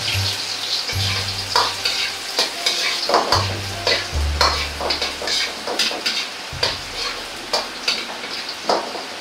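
Minced garlic sizzling in hot oil in a wok, with a steel ladle scraping and clacking against the wok as it is stirred, in irregular strokes.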